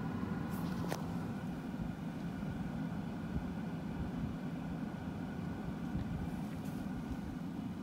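Vehicle driving on a dirt road, heard from inside the cabin: a steady low rumble of engine and tyres, with a couple of faint clicks.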